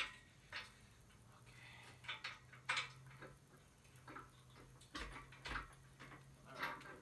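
Irregular light metal clanks and knocks, about a dozen spread over several seconds, from an engine block and tools being handled and set down, over a faint steady low hum.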